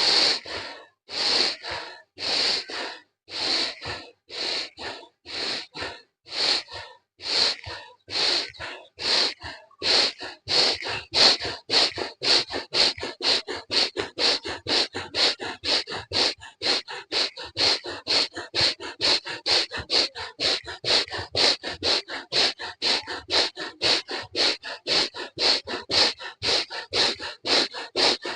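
Forceful rhythmic pranayama breathing, each in-breath as long as each out-breath. It starts at about one stroke a second and speeds up to two or three strokes a second within about ten seconds, then keeps an even pace.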